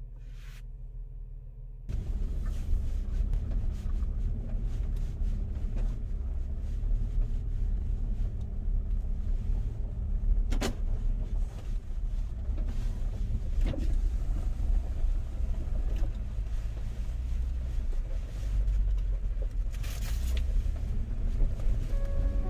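Land Rover Discovery driving on a mountain road: a steady low rumble of engine and tyres with scattered knocks and rattles. It starts suddenly about two seconds in, after a low hum.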